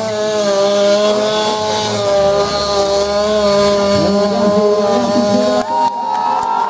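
Tuned two-stroke scooter engine held at high revs during a burnout, spinning the rear tyre in place, its pitch wavering slightly. About five and a half seconds in, the engine note jumps abruptly to a higher, steadier pitch.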